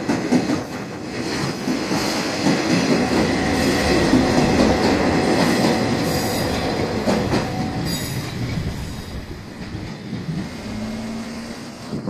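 Two-car 1200-series diesel railcar passing slowly over a level crossing: diesel engines running and wheels clacking over the rail joints, easing off in the last few seconds as the train clears.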